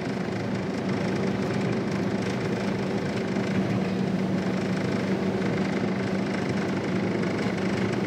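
Steady in-cab drive noise of a 2002 Jeep Wrangler TJ on a snow-covered road: engine and big mud-terrain tyres running together, with a constant low hum underneath.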